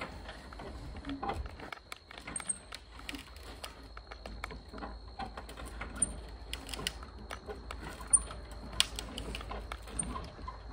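Irregular light clicks, clinks and knocks from a crew raising a framed wall with pump jacks, the metal jacks and lumber being worked, with one sharper knock about eight seconds in. A few short high chirps sound now and then.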